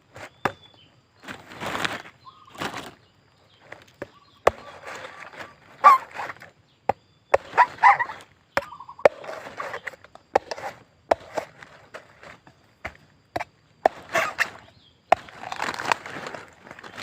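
Eating sounds: crunchy chewing of small bird meat and bones, with irregular sharp clicks and short crackly bursts.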